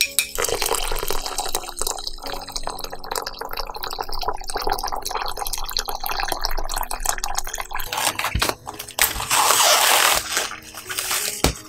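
Water pouring in a steady stream into a steel pot of poppy seeds, foaming as it fills. Near the end, a louder spell of plastic cling film crinkling as it is stretched over a bowl.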